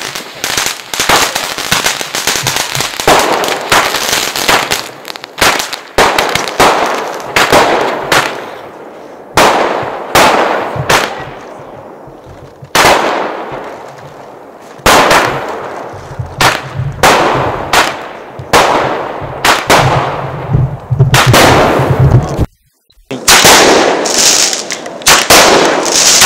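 Fireworks going off: a dense run of cracks and bangs at first, then repeated sharp bangs spaced a second or more apart, each trailing off in an echo. The sound breaks off for a moment near the end.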